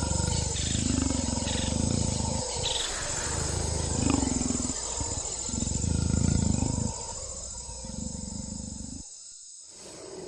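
Velociraptor sound effect: a run of deep animal growls and roars for about seven seconds, quieter after that, dropping away briefly near the end.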